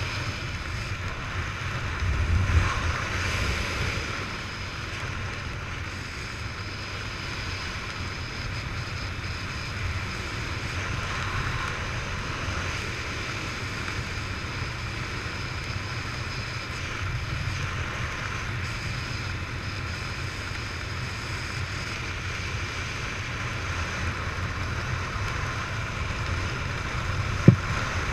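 Steady rushing wind on a helmet-mounted GoPro's microphone during a descent under a parachute canopy, with a low rumble that swells slightly a few seconds in. A single sharp click about half a second before the end.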